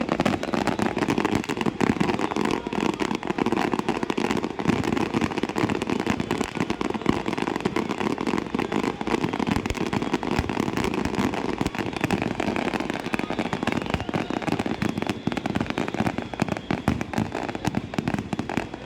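Fireworks display going off: a dense, continuous crackle of many rapid bangs and pops.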